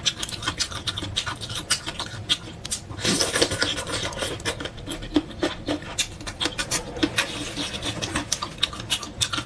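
Close-miked chewing of boneless chicken feet, the crunchy cartilage giving many sharp, irregular crackling clicks.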